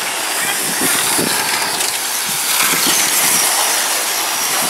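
Several electric R/C sportsman trucks with 17.5-turn brushless motors running laps on a paved oval: a steady high hiss and whine of motors, gears and tyres.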